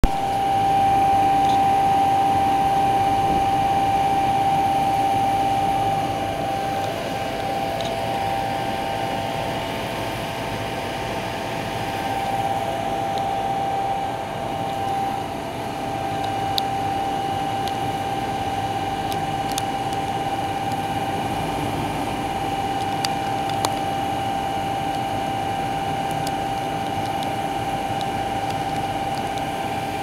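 The two three-bladed top-discharge condenser fans of a commercial air-conditioning unit running steadily: a loud rush of air with a steady whine from the fan motors.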